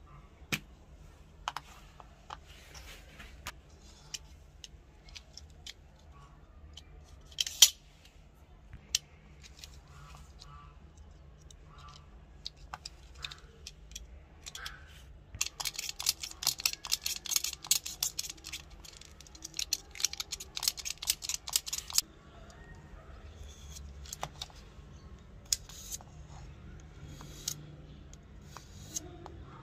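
Filler paste being mixed and spread with a plastic spatula and putty knife: scattered clicks and taps of the tools on a plastic cap and tin, one sharp click about a quarter of the way in, and a dense run of fast scraping clicks lasting about six seconds in the middle.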